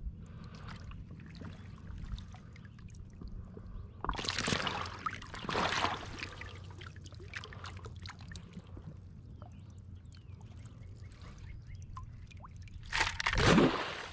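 River water sloshing and pouring through a mesh gravel sifter as it is shaken and dipped. There are surges of rushing water about four and six seconds in, and the loudest splash comes near the end.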